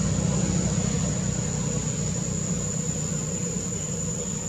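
An engine idling steadily with a low, even rumble, and a steady high-pitched insect whine above it.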